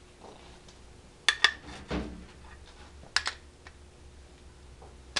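A few sharp clicks in pairs and a dull knock as tools are handled on a workbench.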